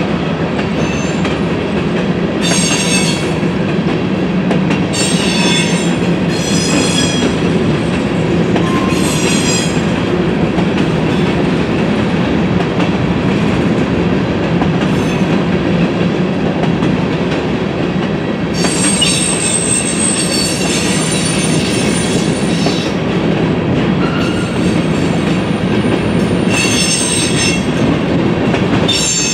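Norfolk Southern freight train's covered hopper cars rolling past with a steady rumble and clickety-clack of wheels on rail. Several bouts of high-pitched wheel squeal come and go, the longest about two-thirds of the way through.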